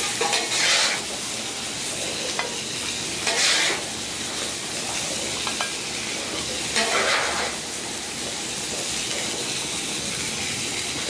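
Food sizzling steadily on a hot flat-top griddle, with a metal spatula scraping across the steel three times as shrimp are scooped up, about half a second, three and a half and seven seconds in.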